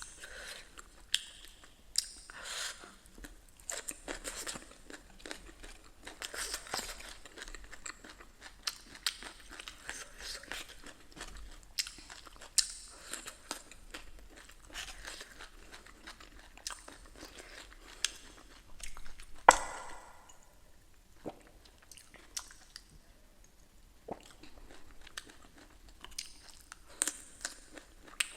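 Close-miked eating: a person biting and chewing crunchy food, with many short crunches and mouth clicks and one louder sharp click about two-thirds of the way through.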